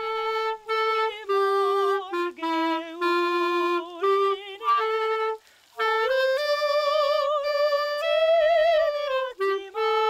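Clarinet playing a slow melody of held notes with vibrato, breaking off briefly about halfway through.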